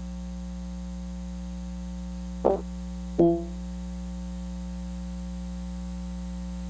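Steady electrical mains hum on a remote call's audio line while the speaker's voice has dropped out, broken by two brief clipped sounds about two and a half and three seconds in.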